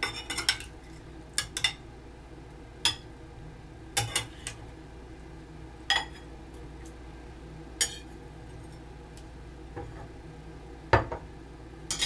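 A metal spoon clinking and scraping against a bowl in sharp, irregular knocks, roughly one every second or two, as raisins are scooped into cooked oatmeal. The loudest knock comes about eleven seconds in.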